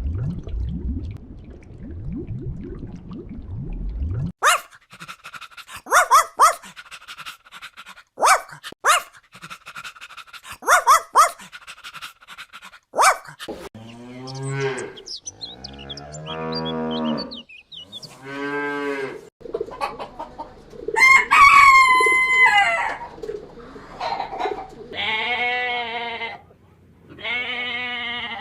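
A series of farm animal calls: a low rumbling noise at first, then hens clucking in short bursts, a cow mooing several times, a rooster crowing a little past the middle, and more pitched animal calls near the end.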